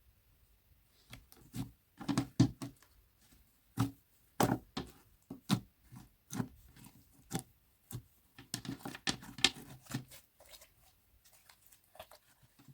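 Slime mixed with clay paste being squished and stretched by hand: irregular sticky clicks and pops, busiest about two seconds in and again near nine seconds.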